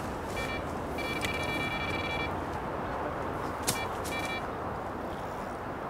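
Electronic carp bite alarm sounding in bursts of a high, steady buzzing tone: a short one, then one lasting over a second, then two short ones near the end, as a hooked carp pulls on the line. Two sharp clicks come just before the last bursts.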